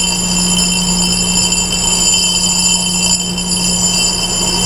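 Reid surface grinder's spindle running with a steady hum while the side of its 60-grit J-hardness grinding wheel is relieved by hand, giving a steady high-pitched ringing whine.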